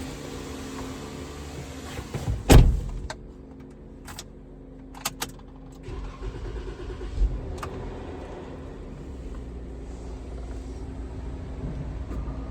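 Jeep Wrangler JK engine running at idle on its first start after an oil change, a steady low rumble that grows fuller in the second half. A loud thump comes about two and a half seconds in, followed by a few sharp clicks.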